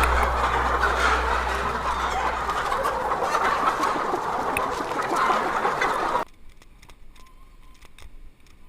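Fowl clucking and calling as a dense, busy chorus, which cuts off suddenly about six seconds in to a much quieter background.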